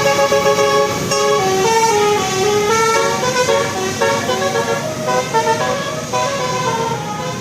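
Bus telolet horn of the Basuri type playing a tune: a continuous run of pitched notes stepping up and down.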